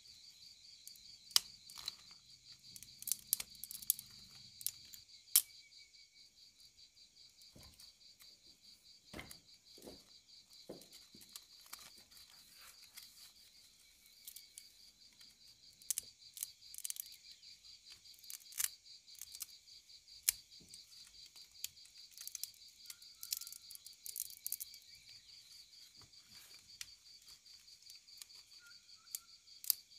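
Insects chirring in a steady, fast-pulsing high drone, with sharp pops and clicks from a crackling wood fire scattered throughout, loudest in the first few seconds. A few duller knocks come around ten seconds in.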